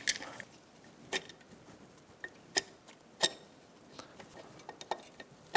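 Light metallic clicks and taps, about six spread unevenly, as a new cylinder is worked down over the piston and rings of a Yamaha YFZ450R engine, with the last one near the end a little louder.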